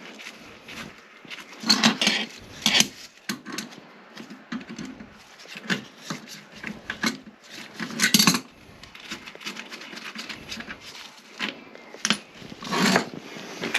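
Irregular clinks and clatter of hard objects being handled, with louder knocks about two seconds in, about eight seconds in and near the end.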